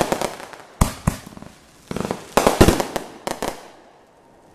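Aerial firework shells bursting: about half a dozen sharp bangs with rapid crackling between them, dying away in the last second.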